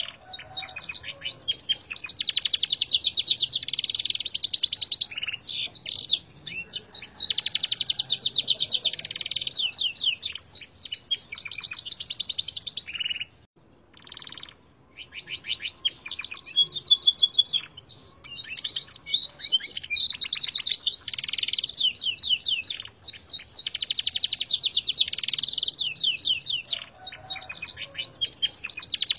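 A Gloster canary singing a long song of fast trills and buzzy rolling phrases, tutored on red siskin song. It breaks off for about two seconds halfway through, then goes on.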